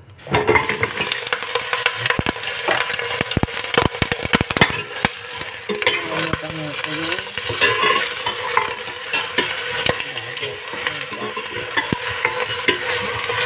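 Pork hocks sizzling hard as they hit hot caramelized rock sugar and sauce in a metal pot, starting abruptly. A slotted spatula stirs them, clicking and scraping against the pot, most often in the first few seconds.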